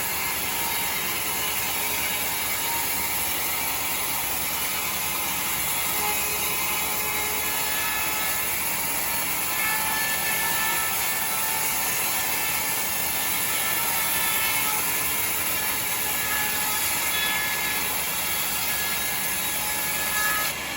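Sawmill saw running steadily through timber: a continuous, even machine noise with faint whining tones over it.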